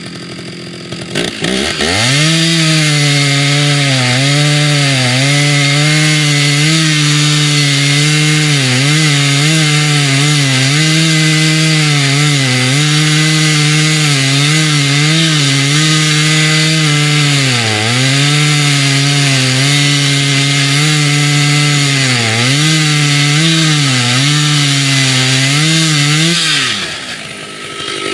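Stihl 056 AV two-stroke chainsaw with a long 28-inch bar revving up to full throttle about two seconds in and cutting through a big log round. The engine pitch dips again and again as the chain loads up in the wood, then falls back to idle near the end as the saw comes out of the cut.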